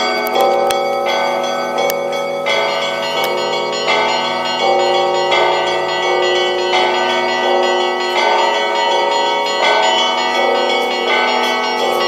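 Russian Orthodox church bells of a monastery bell tower ringing together in a festal peal, with a fresh set of strikes about every 0.7 seconds over the lasting hum of the larger bells.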